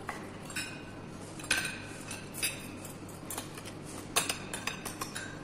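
Metal spoons and forks clinking against ceramic plates and bowls as several people eat: scattered light clinks, a little more frequent after about four seconds.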